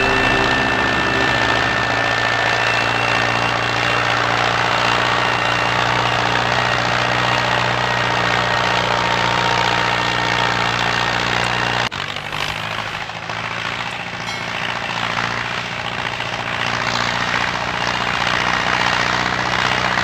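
Steady engine drone of a tractor, running evenly, with an abrupt cut and change in its pitch about twelve seconds in.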